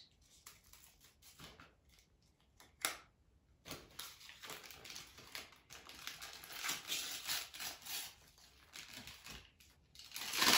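Thin plastic packaging crinkling and rustling as small fingers handle and open it, in soft, irregular bursts with a sharp click about three seconds in.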